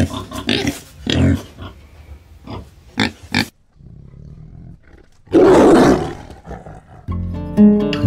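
A pig grunting in short separate bursts, then a tiger roaring once, loudly, about five seconds in. Guitar music comes in near the end.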